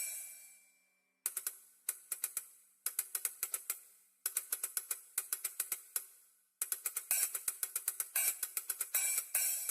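Sampled drum-kit cymbals from an add-on drum sound set for karaoke software. A cymbal hit fades out, then the hi-hat plays short, quick phrases with pauses between them. The phrases grow busier and louder in the last few seconds.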